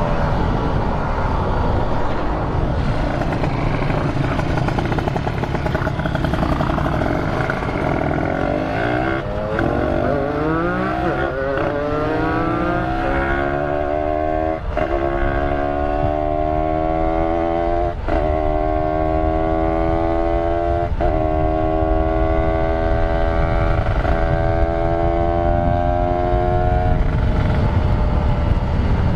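Kawasaki Ninja 150RR two-stroke motorcycle engine under way. Its pitch climbs as it accelerates, then it holds steady at speed, broken briefly about every three seconds.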